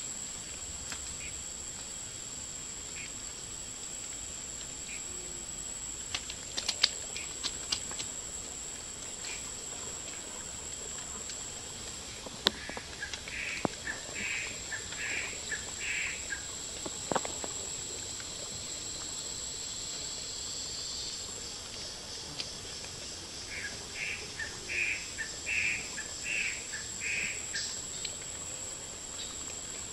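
Steady high-pitched drone of forest insects, joined twice by a short run of pulsed calls, about four and then about six in a row, with a few sharp clicks scattered through.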